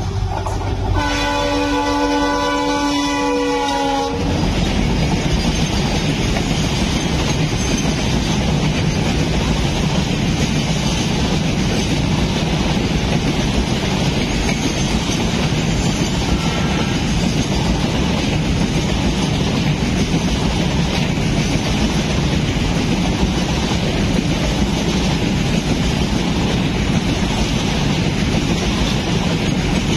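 A WDG4 diesel locomotive's horn sounds one blast about three seconds long, starting about a second in. The locomotive and its tanker train then pass at speed without stopping, with steady rumbling and clattering of the tank wagons' wheels on the rails.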